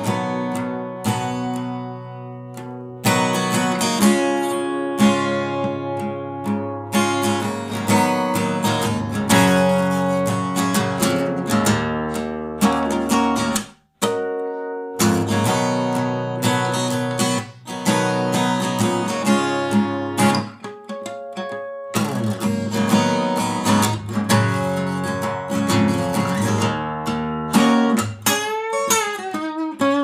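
Background music on acoustic guitar, strummed and picked, with a brief break about halfway through.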